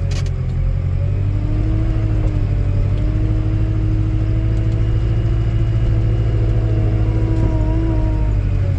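Skid steer engine running steadily, a low rumble with a hum that drifts slightly up and down in pitch.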